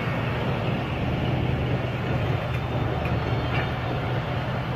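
ZCU-20 diesel-electric locomotive pulling a train away slowly, its engine running with a steady low rumble as the coaches roll past. A few faint clicks come about halfway through.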